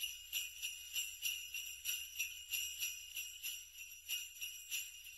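Jingle bells shaken in a steady rhythm, about three shakes a second.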